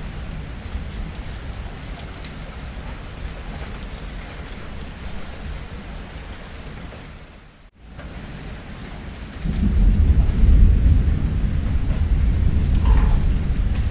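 Steady rain falling, with the sound dropping out for a moment just past halfway. Then, about two thirds in, a loud, deep rumble of thunder sets in and rolls on through the rain.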